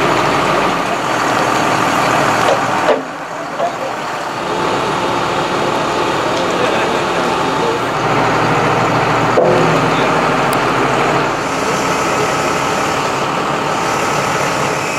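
Heavy vehicle engine running steadily on a floodgate work site.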